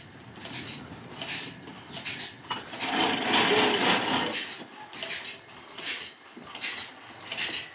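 Irregular metallic clanks and knocks as a log is shifted and clamped on a band-sawmill carriage, steel dogs, levers and tools striking the carriage frame. The clatter is busiest about three seconds in.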